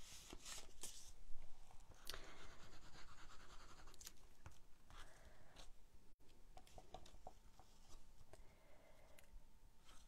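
Faint paper handling: patterned card panels slid into place and pressed down by hand onto a card base, giving light rubbing and scratching with a few small taps.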